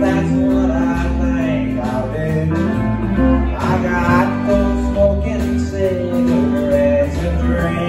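Live country band playing, with acoustic and electric guitars over bass and drums.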